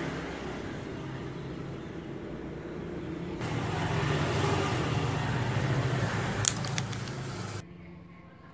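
A motor vehicle's engine running steadily, with a brief cluster of clicks about two-thirds of the way in; the sound drops away sharply near the end.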